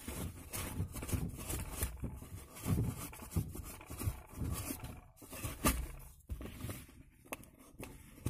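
A small paintbrush scrubbing dust off the plastic console trim around a car's gear lever: bristles rubbing and scraping in short, irregular strokes, with a couple of sharp clicks past the middle.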